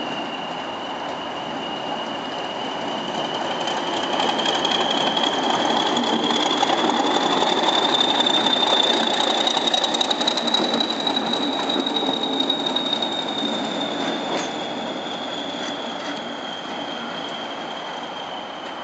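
English Electric Class 40 diesel locomotive moving off slowly, its 16-cylinder engine running under a continuous high turbocharger whistle, the sound the class is nicknamed 'whistlers' for. The whistle rises in pitch and the sound grows loudest around the middle as the locomotive passes close, then the pitch settles back and the sound eases as it draws away.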